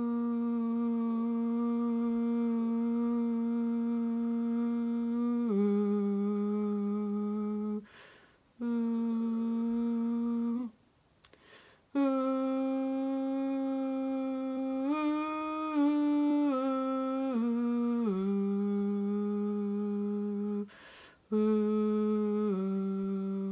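A woman humming the tenor line of a choir piece in long, steady wordless notes, each held for several seconds and stepping down a little in pitch, with short breaks for breath and a brief rising-and-falling turn in the middle.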